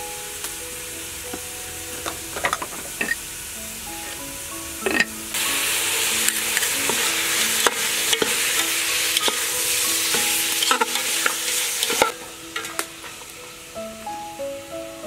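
Chunks of meat frying in a hot metal pot while being stirred with a ladle: a loud sizzle with metal scrapes and clinks starts about five seconds in and cuts off suddenly about twelve seconds in. A few light spoon clinks come before it, over soft background music.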